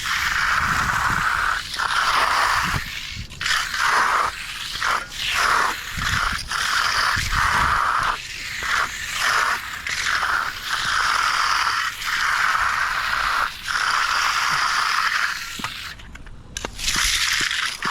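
A hand tool scraping over fresh concrete in repeated strokes of about a second each, with short gaps between them, as the concrete is worked and smoothed.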